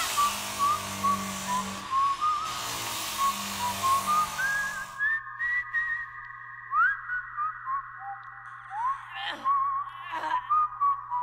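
A whistled melody with backing music. About five seconds in, the backing drops out and the whistling goes on over a steady held hum, with a few quick upward swoops in pitch and two sharp hits near the end.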